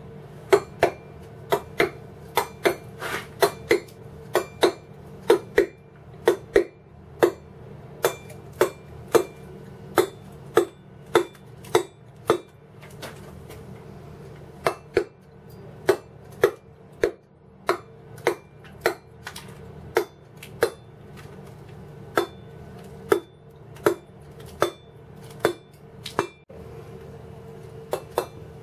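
Wooden mallet striking a cold steel chisel into stone, a sharp chink at each blow, about one and a half blows a second with two short pauses, as feathers are cut into a carved wing. A steady low hum runs underneath.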